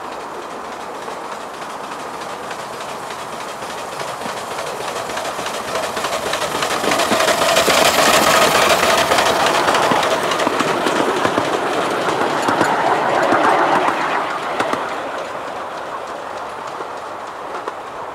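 A 7¼-inch gauge miniature railway train running past, its wheels clicking over the rail joints. It grows louder as it approaches, is loudest as it passes close by about halfway through, then fades as it runs away.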